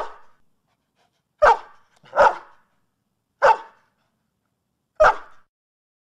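A dog barking: four short, sharp single barks at uneven intervals, following the tail of another bark right at the start.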